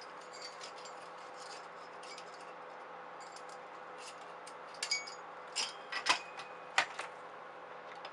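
A few sharp clicks and knocks between about five and seven seconds in, from a CPU cooler being handled and set down onto a motherboard's processor socket, over a steady faint hiss and hum.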